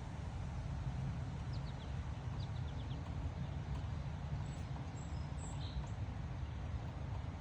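Strong wind rumbling steadily on the microphone, with a bird giving a few faint short chirps partway through.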